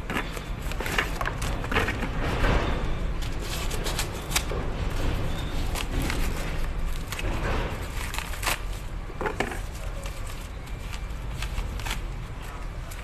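Handling noise from engine parts and plastic wrapping: irregular clicks, knocks and crinkles over a steady low hum.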